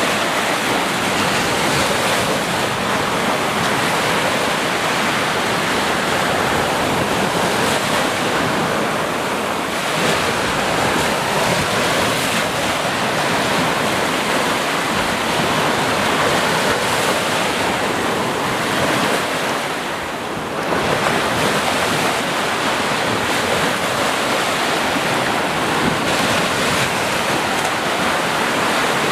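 Sea surf: waves washing continuously onto a shore as a steady rushing noise, with one brief lull about two-thirds of the way through.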